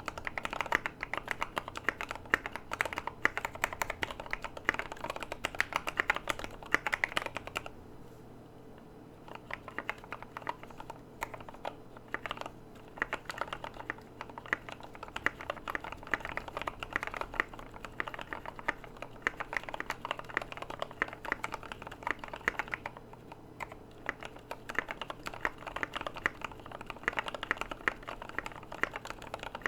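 Continuous fast typing on a KBD75v2 mechanical keyboard with lubed Gateron Yellow linear switches, a polycarbonate plate, neoprene case foam and MT3 keycaps: a dense run of keystroke clacks that stops for about two seconds near the start of the second third, then resumes.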